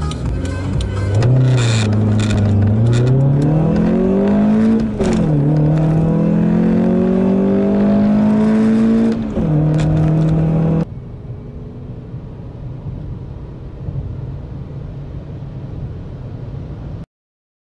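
Car engine under hard acceleration through the gears: its pitch climbs steadily in each gear and drops sharply at gear changes about a second in, around five seconds in and around nine seconds in. Just before eleven seconds the loud run cuts off abruptly, leaving a quieter, steady engine and road sound that stops suddenly near the end.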